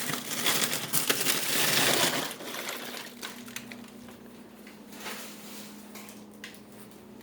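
Loud crackling, crunching noise for about two seconds, then fainter scattered crackles over a steady low hum.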